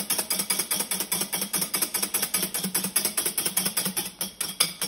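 Wire balloon whisk beating eggs in a glass bowl, its wires clicking against the glass in a quick, even rhythm. The eggs are being whisked to a foamy mousse.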